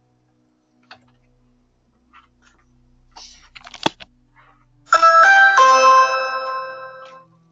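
A sharp single knock or click about four seconds in, then a doorbell chime: three quick notes that ring on and fade over about two seconds.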